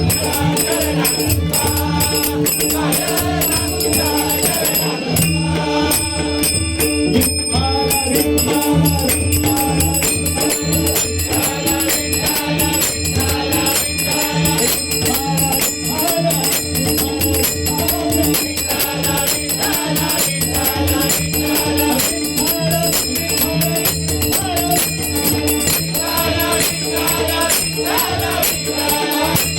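Marathi devotional abhang sung in bhajan style, with a singing voice over steady held drone notes and a fast, busy jingling percussion beat.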